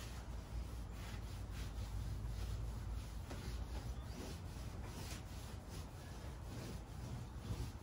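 Broom sweeping a camper's vinyl floor in quick repeated brushing strokes, about two or three a second, over a low steady hum.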